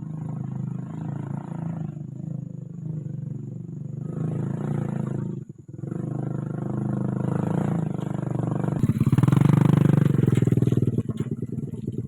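Motorcycle engine running under load. It cuts out briefly about halfway through, then revs harder and louder near the end.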